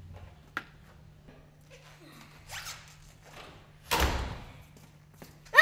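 Faint steps and scuffs, then about four seconds in a heavy wooden front door shuts with a thud that dies away quickly.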